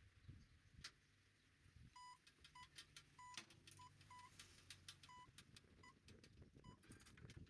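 Faint short electronic beeps on one steady tone, about eight of them at uneven intervals starting a couple of seconds in, with light clicks and a faint low hum beneath.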